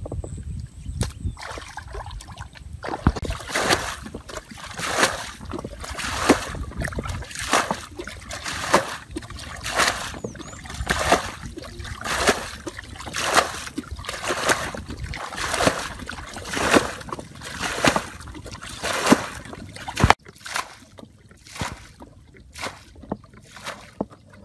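Muddy water being bailed with a bucket: a splash and slosh as the water is scooped and thrown out, repeating about once a second, draining a flooded pool in a rice field. Near the end there is a sharp click, and the splashes become smaller and quieter.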